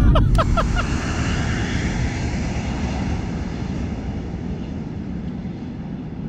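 Passenger plane passing low overhead on its landing approach. Its engine noise is loudest at first and fades steadily as it moves away.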